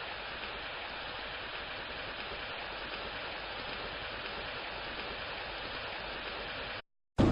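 Steady sound of rain falling, which cuts off abruptly near the end. After a brief silence, a loud clap of thunder begins right at the very end.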